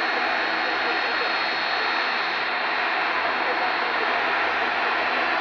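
Boeing 757's twin jet engines running steadily at low thrust as the airliner lines up on the runway: an even rushing hiss with a thin, steady high whine.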